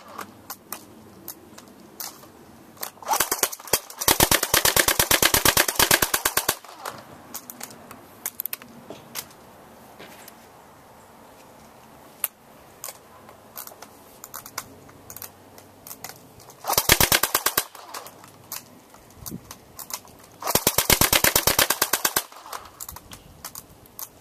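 Airsoft HK MP5 replica firing full-auto bursts: a rapid clatter of shots in four bursts, two close together a few seconds in and two more near the end, with scattered single clicks between them.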